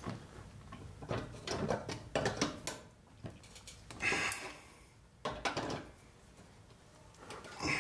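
Hand tools on steel: a wrench and slip-joint pliers clinking and scraping on the bumper's metal mounting bracket and bolt, in several short bursts of clicks with quiet gaps between.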